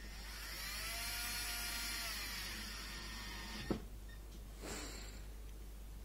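Cordless drill-driver running a Phillips screw into a dishwasher's door panel: a motor whine for about three and a half seconds that stops with a sharp click. A brief scrape follows a second later.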